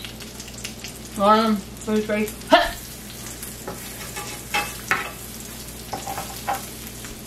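Chicken patties frying in lard in a pan: a steady sizzle throughout. A few short vocal sounds come in the first few seconds, with small clicks later on.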